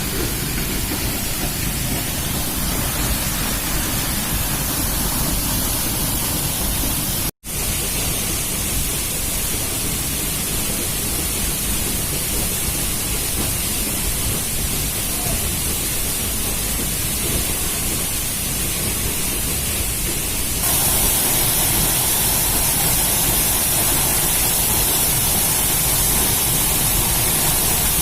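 Waterfall's falling water rushing steadily. The sound cuts out for an instant about a quarter of the way in, and from about two-thirds in it is louder and hissier.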